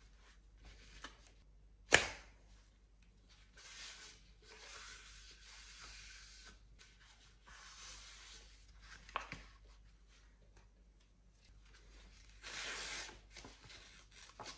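Gloved hands handling rusty iron tin-can lids and sandpaper on a cloth-covered table. A sharp knock comes about two seconds in, then stretches of rubbing and scraping. A louder, briefer papery rasp comes near the end as a sheet of sandpaper is handled.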